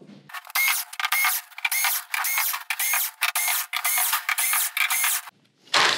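Electric screwdriver whirring in many quick, repeated bursts as it backs out the screws holding the TV's plastic back cover.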